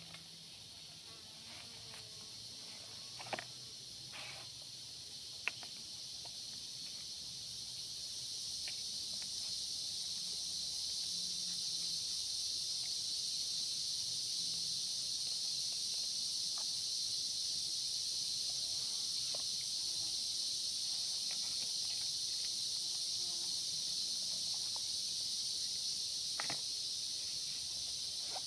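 Forest insects, such as cicadas or crickets, keep up a steady high-pitched chorus that swells over the first ten seconds and then holds. A few short clicks or snaps sound over it.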